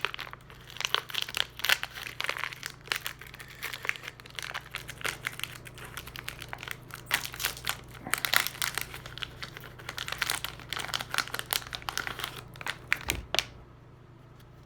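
Wrapper of a Donruss football card pack crinkled and torn open by hand: dense, irregular crackling that stops suddenly near the end.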